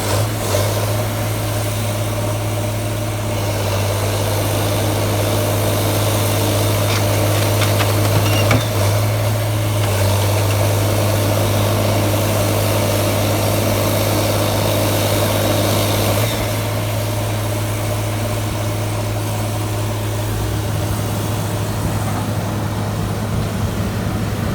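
Sierra 656SL metal shear baler's power unit running steadily: a constant low engine hum with a few faint clicks.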